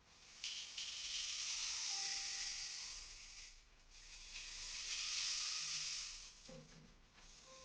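Rain stick tipped over twice, each time a high, hissing cascade of pellets that swells and then fades over about three seconds.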